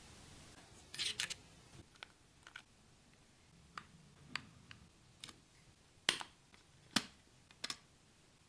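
Irregular light clicks and taps of a smartphone and its packaging being handled, some in quick pairs, the sharpest about six and seven seconds in.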